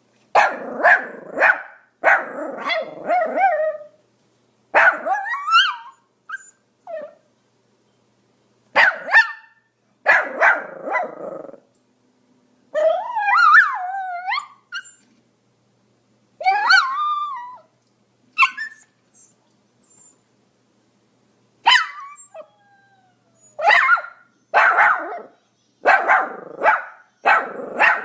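Pomeranian barking in clusters of quick, sharp barks with short silent gaps between them. Near the middle the barks give way to drawn-out whining cries that slide up and down in pitch, before rapid barking resumes for the last few seconds.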